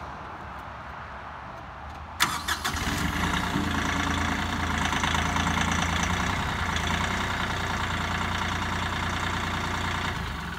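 Kioti CK3510 compact tractor's three-cylinder diesel engine cranking and catching about two seconds in, then running steadily while the front loader lifts and levels the bucket; the engine sound eases off near the end.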